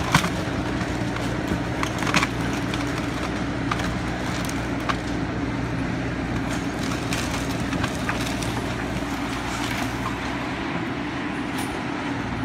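Tracked excavator's diesel engine running steadily as it tears into a collapsed wooden house, with a few sharp cracks and crunches of breaking timber and debris, the loudest about two seconds in.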